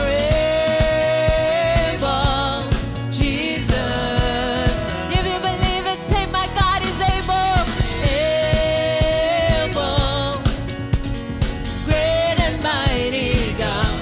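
Gospel praise-and-worship song: a band with a steady drum beat backing singers holding long notes with vibrato.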